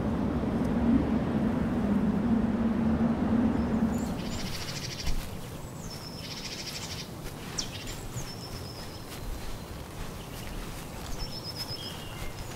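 Outdoor nature ambience: a steady rushing background, with a low hum for the first four seconds, then birds chirping and trilling high up from about four seconds in.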